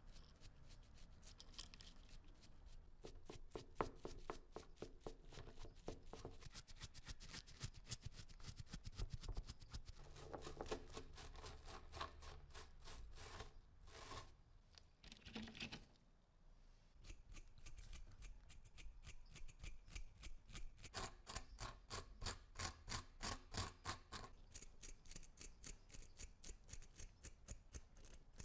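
Stiff brush bristles scrubbing dry corrosion off a small porcelain bottle and its corroded chain, in quick back-and-forth scratchy strokes with a brief pause midway.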